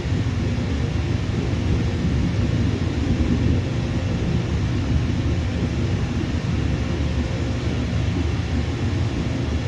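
Jet airliner engines rumbling steadily, a low, even roar that neither rises nor falls.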